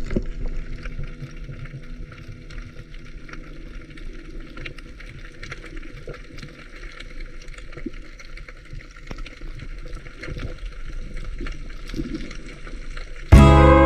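Underwater sound picked up by a GoPro in its waterproof housing: a muffled water hiss with many scattered sharp clicks and crackles. Loud guitar music starts suddenly near the end.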